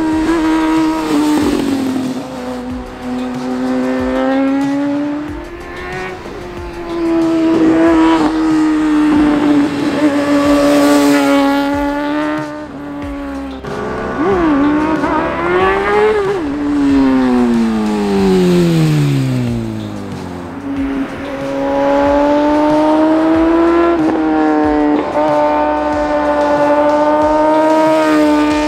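Inline-four sport motorcycles with aftermarket exhausts (a Honda CBR600F and a Suzuki GSX-R 750) running at high revs, the note held steady, then dipping and climbing with throttle and gear changes. A little past halfway one bike flies past, and its pitch falls in one long sweep.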